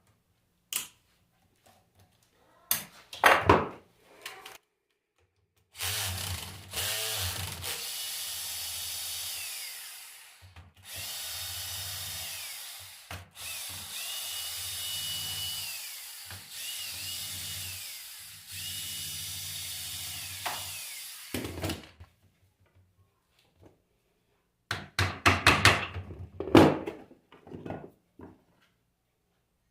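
Handheld electric drill running in five bursts, its motor whine climbing as each burst starts and falling away as it stops. There are short loud clatters of parts being handled about three seconds in and again near the end.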